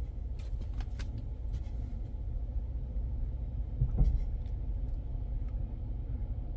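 Truck engine running with a steady low rumble, heard from inside the cab, with a few light clicks and one louder knock about four seconds in.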